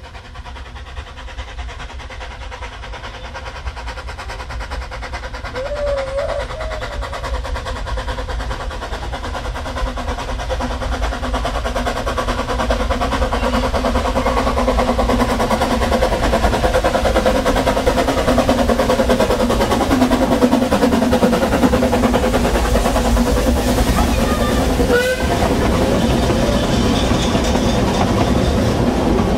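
Narrow-gauge steam locomotive approaching with its train, growing steadily louder until about halfway, then the coaches rolling past close by.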